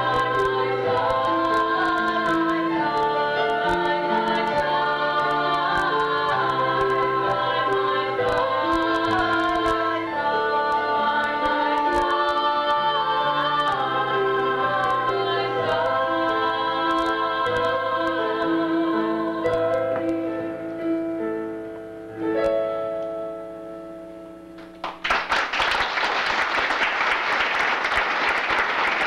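Four women singing a slow song in close harmony with instrumental accompaniment, ending on a held chord that fades away a little over twenty seconds in. Audience applause then breaks out about twenty-five seconds in and continues.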